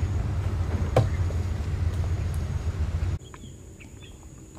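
Steady low rumble of a small boat's motor under way, with one sharp knock about a second in. It cuts off abruptly about three seconds in, leaving quiet with faint bird chirps.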